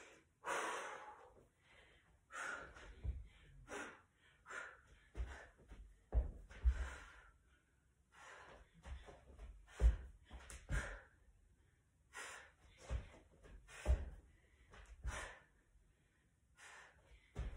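A woman breathing hard and gasping from exertion, a heavy breath every second or so, as she does burpees, with dull thumps of her hands and feet landing on the floor.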